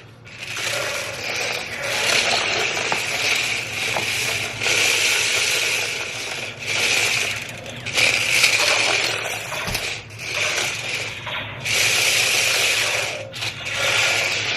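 Small plastic gearmotors of toy RC laser-tag tanks whirring and grinding in stop-start bursts every second or two as the tanks drive and turn.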